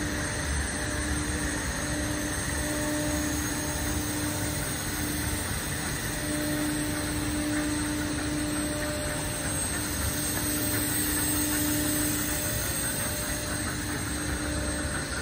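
Wire-processing machine running steadily, with a hum that fades in and out.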